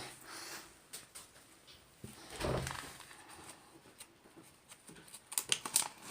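A foil sticker sachet being handled and peeled open with quiet rustles. There is a short, soft low sound about halfway through, and a run of quick crinkles near the end.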